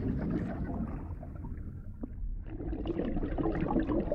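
Muffled underwater ambience: a low rush of water with faint crackling, thinning out briefly in the middle with a single click.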